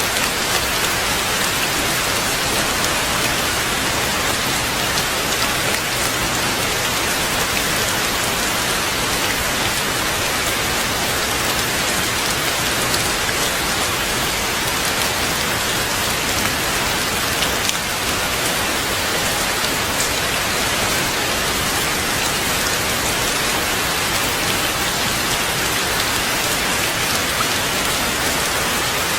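Steady heavy rain falling in a dense, even hiss, with a few faint individual drop ticks.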